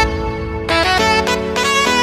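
Background music: a melody on a reedy wind instrument, saxophone-like, over held lower notes.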